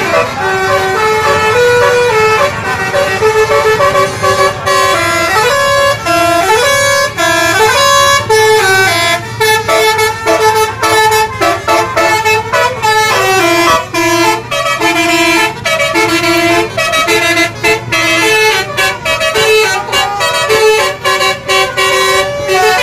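Bus fitted with a 'basuri' telolet multi-tone horn playing a melody: a long, fast run of short notes stepping up and down in pitch, over a low steady hum.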